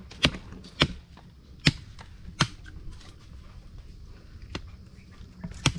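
Bolo machete chopping at bamboo shoots: sharp single strikes, four in the first two and a half seconds, then a pause and another near the end.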